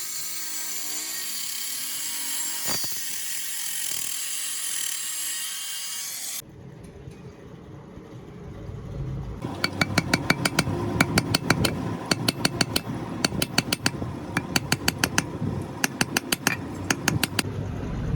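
Workshop power tool running with a steady high-pitched hiss, stopping abruptly about six seconds in. From about nine seconds on come rapid, regular sharp strokes or clicks, several a second, in runs with short pauses, over a low rumble.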